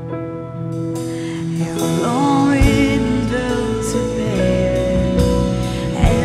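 A live worship band plays a slow Danish praise song. There are sustained keyboard chords and a steady beat of light strikes, a voice comes in singing about two seconds in, and the electric bass enters strongly soon after.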